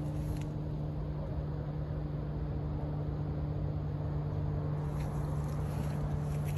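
Steady low machine hum, one unchanging pitch with a low rumble underneath.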